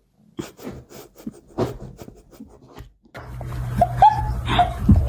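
Dog panting in short, irregular breaths. About three seconds in, a steady low hum starts, with a few short pitched cries over it.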